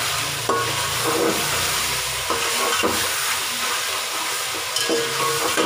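Chicken pieces sizzling as they fry in oil with whole spices in an aluminium pot, a spatula stirring and turning them through the hot oil. The sizzle is steady throughout.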